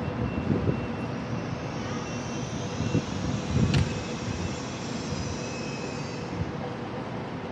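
CRH high-speed electric train standing at the platform, its equipment giving a steady whooshing hum with a brighter hiss in the middle. A faint high beep repeats now and then, and there is a sharp click a little under four seconds in.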